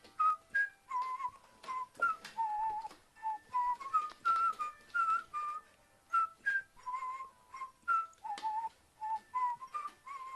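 A whistled tune of short, quick notes that hop up and down in pitch, with faint clicks behind it, in the manner of a background music track.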